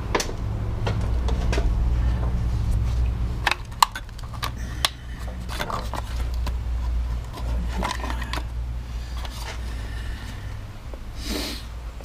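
Scattered metal clanks, knocks and scrapes from steel parts being handled, over a steady low mechanical hum. The two sharpest knocks come close together near the middle.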